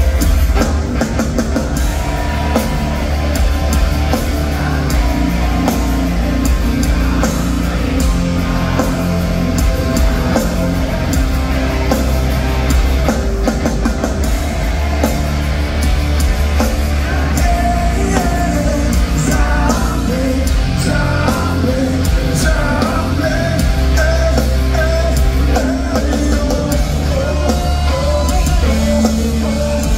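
A heavy rock band playing live on distorted electric guitars, bass and drum kit, with a male singer singing and yelling over it, heard loud from within the crowd.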